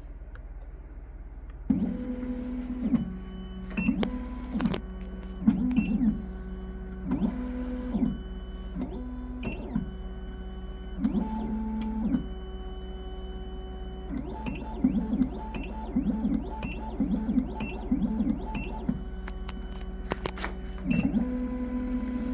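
Triton key machine decoding a key: its motors whine in a long series of short stop-start moves, with clicks between them, as it reads the key's cuts. The moves begin about two seconds in, over a steady low hum.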